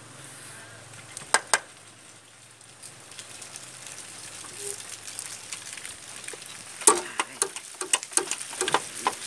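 Sharp metal clicks and knocks as a stuck pump housing on a Toyota 2C diesel's cylinder head is rocked and pried loose by hand and screwdriver, with the engine stopped. There are two clicks about a second and a half in, then a quick scatter of clicks and taps near the end.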